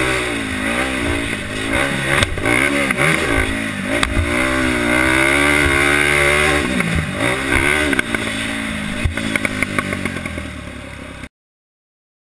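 Polaris Outlaw 525 quad's single-cylinder four-stroke engine revving up and down repeatedly as the throttle is worked, with a few sharp knocks and clatter along the way. The sound fades near the end and then cuts off.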